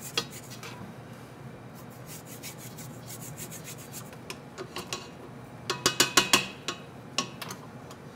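Spatula scraping and knocking against a stand mixer's metal bowl and the dough in it, in irregular strokes, with a quick run of about half a dozen louder scrapes past the middle.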